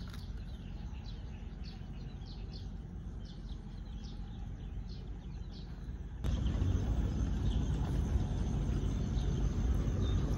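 Outdoor riverside ambience: many faint short bird chirps over a low steady rumble. About six seconds in, it jumps suddenly to a louder, even rushing noise.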